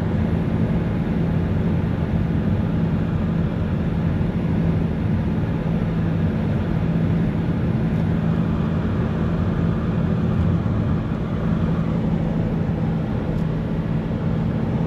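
Steady engine and road noise of a moving car, with a constant low hum.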